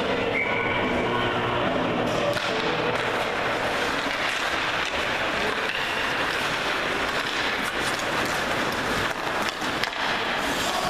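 Ice hockey rink noise during play: skates scraping and crowd voices as a steady background, with a short referee's whistle blast right at the start. Sharp stick-and-puck clacks come in the last few seconds as a shot is taken.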